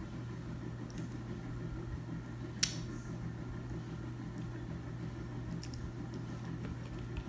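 Quiet room with a steady low hum, faint soft handling and eating sounds as crab meat is dipped in butter sauce and bitten, and one sharp click about two and a half seconds in.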